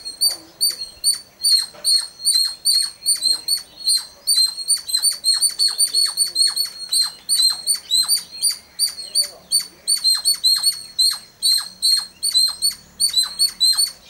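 Babblers calling in a rapid, unbroken series of short, high chirps, about four to five a second.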